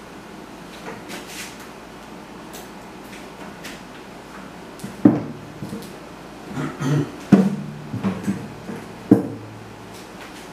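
Acoustic-electric guitar being handled and set into a floor stand: several knocks and bumps over a few seconds, some followed by a short low ringing from the strings and body.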